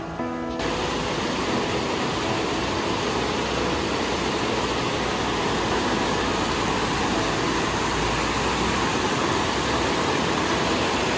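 A fast mountain river rushing over boulders and rapids: a steady, full noise of churning water. Background music stops about half a second in, just as the rushing water comes in.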